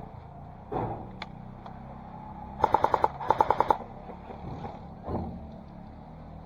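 Airsoft rifle firing two short full-auto bursts a little apart, about five rapid shots each at roughly ten shots a second. A couple of duller single knocks come before and after.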